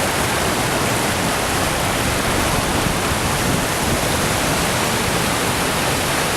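Mayagusuku Falls, a waterfall, rushing with a loud, steady roar of falling water that does not change.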